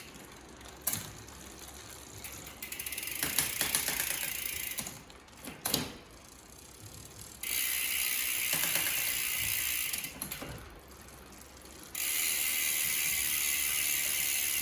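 Rear freehub pawls on a Shimano HG freehub buzzing as the rear wheel freewheels, in three spells of a few seconds each, with quieter stretches between them and a few sharp clicks.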